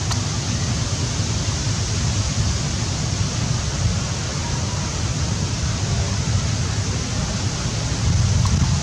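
Steady rushing noise with a low, fluctuating rumble: wind on the microphone.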